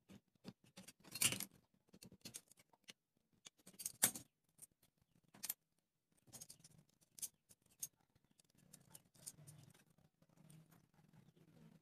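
Light irregular clicks, taps and scratches of handling wooden popsicle sticks, a plastic protractor and a pen on a wooden board, the loudest scrapes about a second in and about four seconds in.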